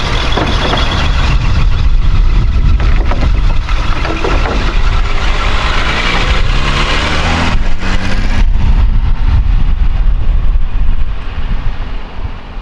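Classic Mercedes-Benz car driving by close up, its engine running loudly with the pitch of its note shifting around the middle; the sound fades out near the end.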